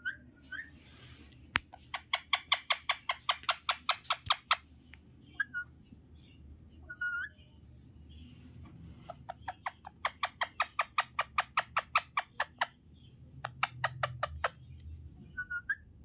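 Young rose-ringed parakeet giving a few short soft chirps while being stroked, with three runs of rapid sharp clicking at about eight clicks a second, the longest lasting two to three seconds.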